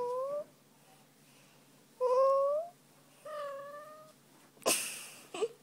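Domestic cat giving three short meows, the first at the start, then two more about two and three and a half seconds in. A brief sharp noise comes near the end.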